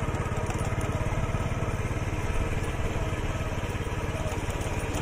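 Small engine running steadily close by, a fast, even stream of firing pulses.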